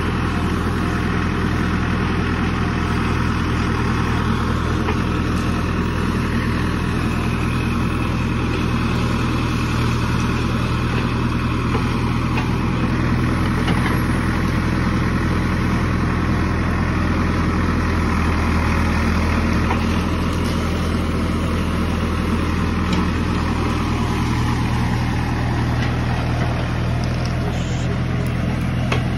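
JCB 3DX backhoe loader's diesel engine running steadily while the backhoe digs in wet mud.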